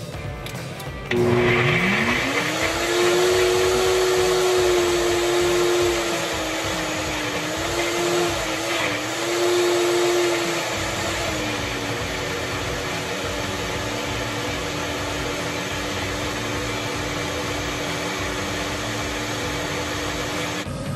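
NutriBullet Rx blender motor starting about a second in, its whine rising quickly to a steady pitch as it grinds fresh corn kernels into a thick batter. The pitch wavers briefly midway, settles a little lower, and cuts off just before the end.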